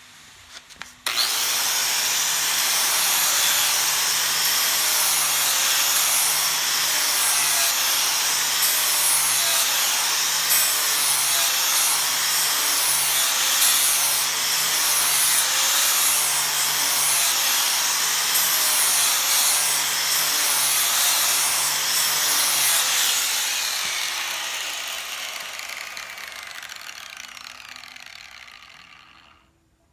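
Electric power sander switched on about a second in, sanding with a steady gritty hiss over a low motor hum, then fading away over the last several seconds.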